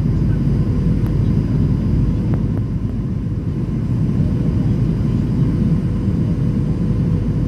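Cabin noise of a Boeing 737 heard from inside: a steady low rumble of engines and airflow with a faint steady whine above it.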